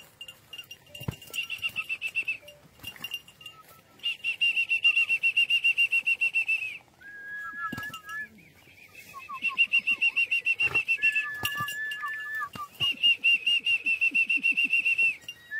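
High whistling, with no pitch low enough for a donkey bray. Quick warbling trills come in phrases a second or two long, and shorter, lower, steady whistled notes fall between them.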